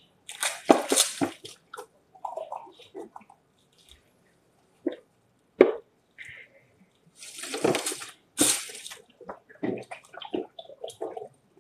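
Drinking water from a plastic bottle: swigs and gulps with water sloshing in the bottle, coming in irregular bursts, with two sharp clicks around the middle.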